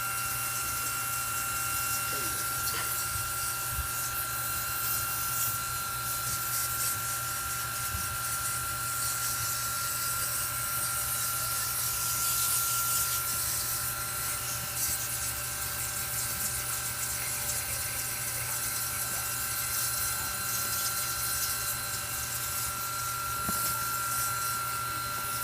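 Washing sprayer's pump running steadily with a constant whine, and the hiss of water spray washing the air conditioner.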